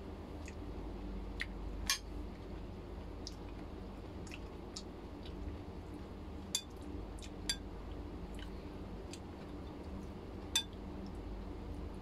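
A spoon and fork clinking against plates during a meal, a few sharp clinks spread through, over a steady low hum.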